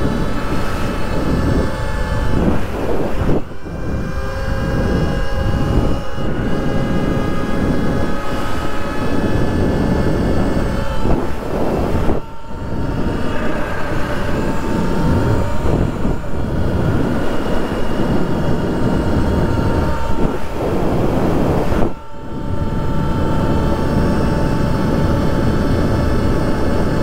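Surron X electric dirt bike's motor whining at riding speed, its pitch sliding slightly up and down with speed, over a heavy rush of wind and tyre noise. The sound drops away briefly three times.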